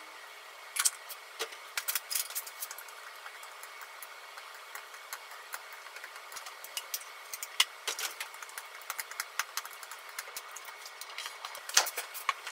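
Light clicks and taps of wooden chopsticks against a ceramic bowl as sliced green peppers are tossed with seasoning. The clicks come in small clusters, busiest in the middle, with a few louder knocks near the end, over a faint steady hiss.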